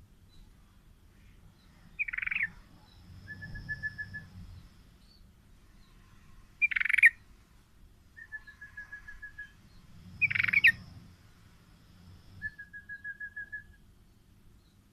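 Male yellow-vented bulbul (trucukan) calling: three short, loud phrases a few seconds apart, each followed by a quieter rapid run of even notes at one steady pitch.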